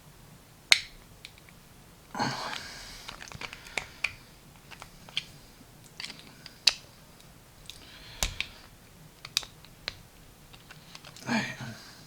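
Screwdriver working the retaining clip off a dimple lock cylinder: scattered sharp small metal clicks and scrapes, irregularly spaced, with a brief scraping rush about two seconds in.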